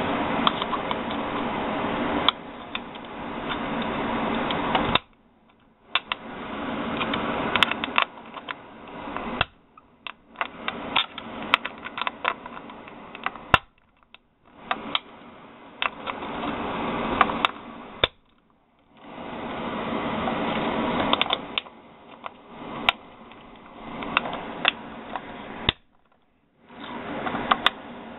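.45 ACP cartridges in a full moon clip being handled close to the microphone: a rustling hiss of fingers with many small metallic clicks, stopping briefly four times.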